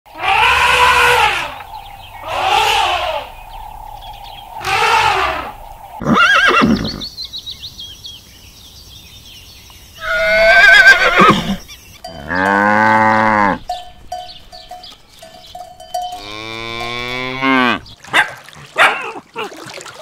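A series of separate animal calls one after another: three long elephant trumpet calls at the start, a horse whinnying about ten seconds in, two long, low cattle moos, then quick short dog barks near the end.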